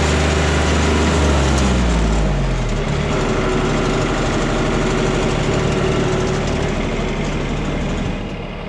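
An engine running loudly; its pitch falls about two seconds in as it slows, and it then runs steadily at the lower speed.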